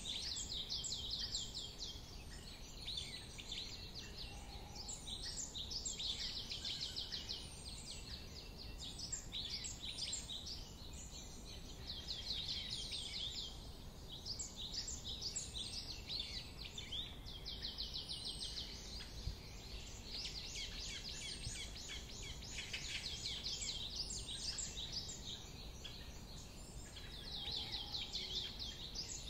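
Several songbirds singing, one high, fast trilled or chirping phrase after another with hardly a break, over a low steady background rumble.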